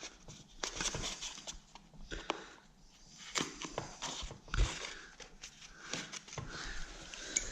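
Lining paper being handled and trimmed around a wall socket: irregular rustling and crinkling of the paper, with small clicks and taps.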